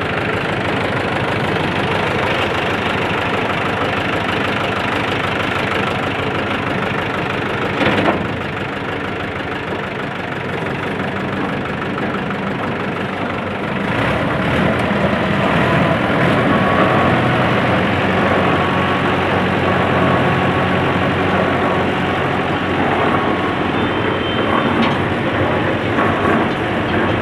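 An engine running steadily at idle. There is a sharp knock about eight seconds in, and the sound grows louder about fourteen seconds in.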